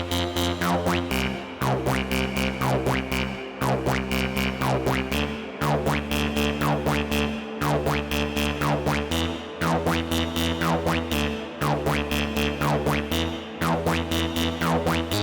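Electronic music from a VCV Rack software modular synthesizer patch. Squelchy synth notes with falling filter sweeps ride over a bass line that steps to a new pitch about once a second, with fast, even percussive ticks throughout.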